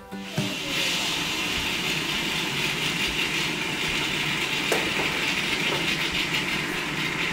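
A steady mechanical whooshing noise, like a fan or running machine, holding an even level throughout, with a single sharp click a little past halfway.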